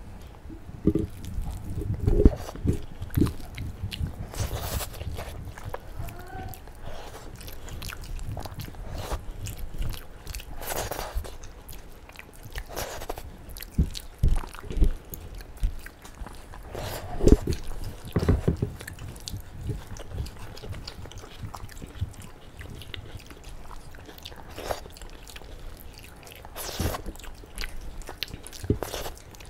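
Two people eating rice and rajma (kidney bean curry) with their hands: close, wet chewing and mouth sounds, with irregular sharp bites scattered throughout.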